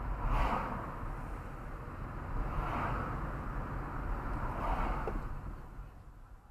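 Road noise inside a moving car through the dashcam's built-in microphone: a steady low tyre and engine rumble, with oncoming cars going past in smooth whooshes, at about half a second, nearly three seconds and about five seconds in. The sound fades down near the end.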